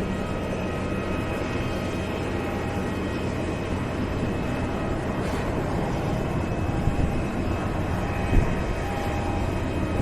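Jet airliner's engines running, a steady rumble with a faint whine. A brief thump near the end.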